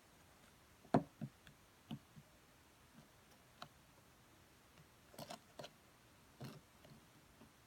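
Sparse light clicks and knocks from working a homemade slime mixture of glue, soap and sand. The loudest knock comes about a second in, with a few more clustered a little past halfway.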